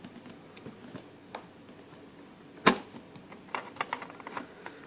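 Small metal clicks and taps from a lock core and tools being handled while the C-clip is worked off the core. There is one sharp, loud click a little under three seconds in, followed by a quick run of lighter clicks.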